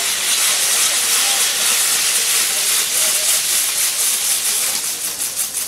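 Maltese ground-firework wheel burning with a loud, steady hiss as its fountain charges spray sparks, breaking into quick crackles near the end.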